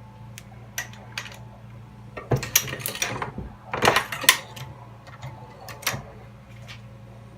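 Metallic clicks and clattering from a Dillon XL650 progressive reloading press being handled and cycled during crimp-die adjustment. A few light clicks come first, then two busy bursts of clatter in the middle and a couple more clicks near the end, over a steady low hum.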